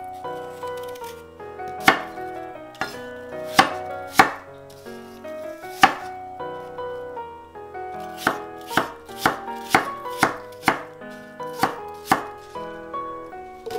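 Chef's knife chopping a peeled apple on a wooden cutting board. A few separate strikes come first, then a quick run of chops at about three a second, with soft background music underneath.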